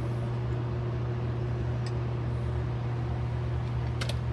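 A steady low hum with a hiss over it, like a fan or motor running. There is a faint click about two seconds in and a sharp tick near the end.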